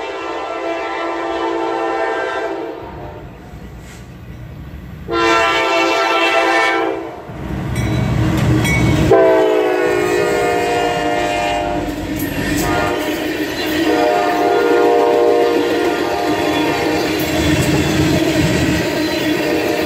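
Horn of a Norfolk Southern GE Dash 9-40CW locomotive sounding several blasts as a loaded grain train passes close by. The horn chord drops in pitch as the lead units go by about halfway through. Deep diesel engine rumble from the locomotives is then followed by the steady roll and wheel clatter of loaded covered grain hoppers.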